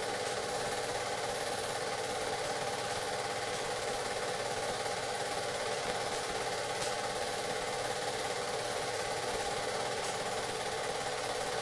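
A steady mechanical drone with a dense buzz, holding an even level throughout.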